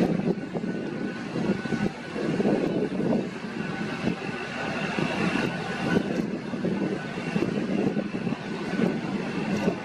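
Steady low engine rumble that swells and fades, with a faint high whine over it.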